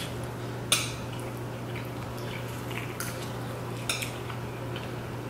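A few sharp clicks of a fork against the dishes, the loudest about a second in, over a steady low hum.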